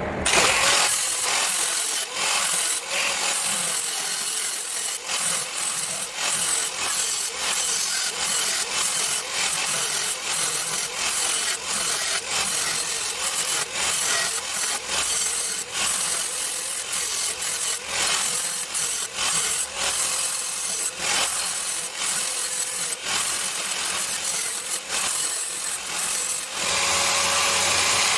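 Welding arc crackling steadily as the broken section of a table vise's threaded rod is welded up solid, with brief breaks in the bead.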